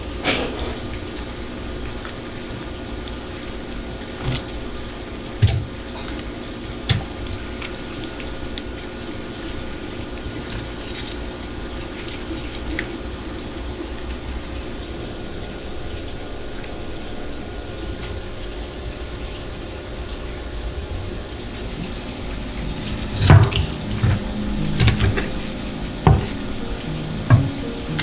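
Tap water running steadily into a stainless steel sink as a gutted anglerfish is rinsed and handled. A few sharp clicks early on, then a run of loud knocks and thumps near the end as the wet fish is moved against the sink and board.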